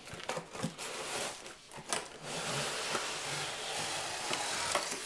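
Cardboard box being handled: a few clicks and rustles as the end flap is worked open, then, about two seconds in, a steady scraping as the inner cardboard tray slides out of the box sleeve.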